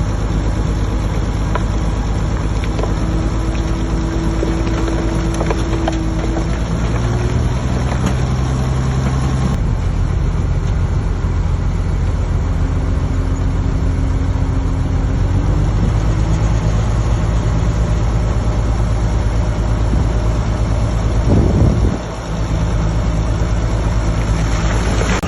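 Diesel engine of heavy earthmoving machinery running steadily, a low drone whose sound changes abruptly about ten seconds in, with a short loud swell near the end.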